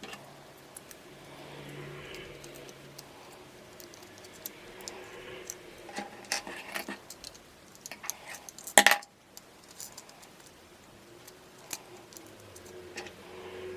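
Plastic Lego bricks being handled and clicked together: scattered light clicks and rattles, with a louder clatter of pieces about nine seconds in.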